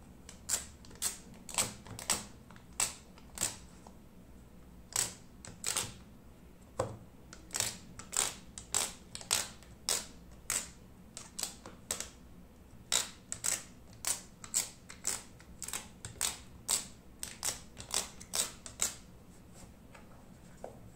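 Dust-removal sticker dabbed again and again onto an iPhone's glass screen: a run of sharp, irregular taps, often two or three a second, broken by short pauses.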